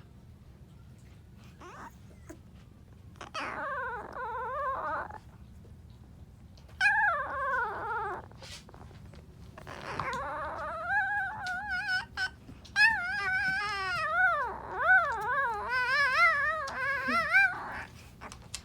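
Newborn Alaskan Malamute puppy trying to howl: four thin, high wails whose pitch wavers up and down, the last one the longest and most warbling.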